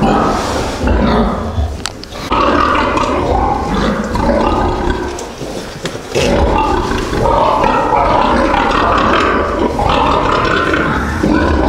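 Domestic pigs screaming loudly and almost without pause in a pig barn, with grunting, with brief lulls about two seconds in and around five to six seconds in.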